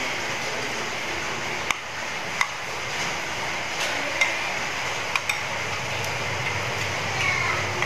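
Cooking oil heating in a nonstick frying pan: a steady hiss with a handful of sharp, scattered pops.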